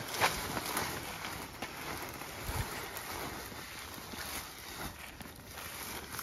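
Footsteps through grass and weeds, coming as irregular strokes every half second or so, over wind rumbling on the microphone.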